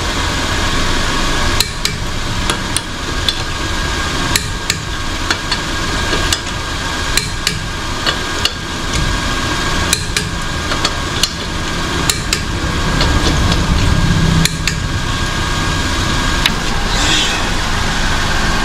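Sharp metal clicks and taps come irregularly, about one a second, from a hand tool worked on a car's front steel wheel. Behind them the Nissan March (K13) engine runs at a steady idle.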